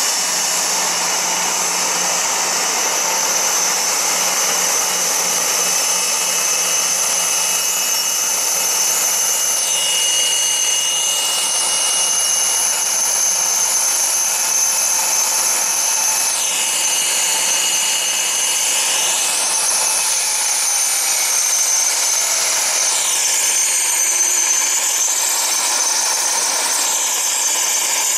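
Embraer EMB-135BJ business jet's auxiliary power unit running: a steady high-pitched whine over a hiss, with a slow swirling phasing sweep a few times and a low hum that fades out about two-thirds of the way through.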